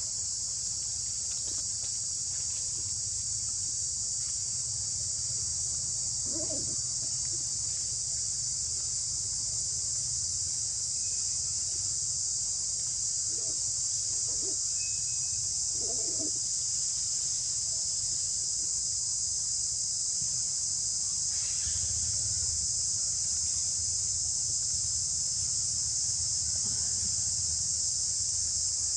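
Steady chorus of insects, a continuous high-pitched buzz, with a few faint short sounds about six, thirteen and sixteen seconds in.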